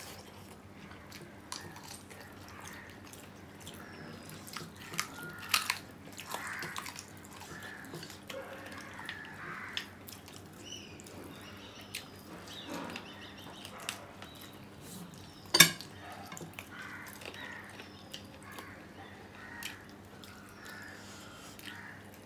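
Eating sounds: two people chewing and smacking while eating chicken on the bone and rice with their hands, with scattered small clicks and one sharp click about two-thirds of the way through.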